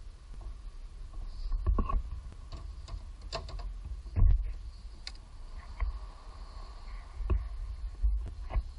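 Irregular clicks and knocks of hands and tools working among the parts of a car engine bay, over a low rumble, with the loudest knock about four seconds in.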